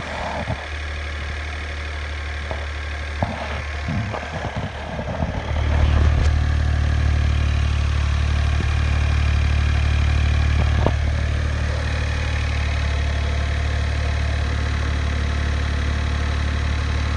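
Mitsubishi i's three-cylinder 660 cc engine running at idle, with a few light clicks in the first seconds. About six seconds in it steps up to a louder, steady speed, easing back a little near eleven seconds.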